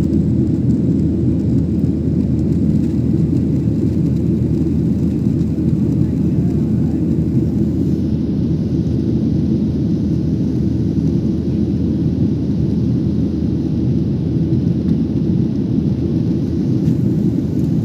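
Steady low roar of a jet airliner in flight, engine and airflow noise heard inside the passenger cabin.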